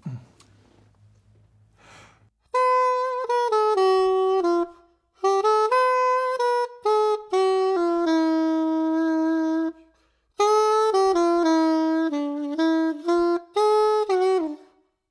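Yamaha Venova, a plastic reed wind instrument, played in three short melodic phrases of reedy, sax-like notes with brief pauses between them, and a breath before the first phrase.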